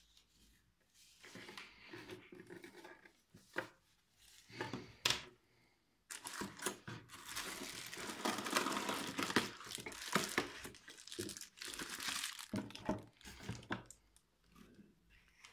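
Bubble wrap crinkling and rustling as a wrapped item is pulled out of a cardboard box, dense for several seconds from about six seconds in and thinning out near the end. Before that, scattered rubs and knocks of handling.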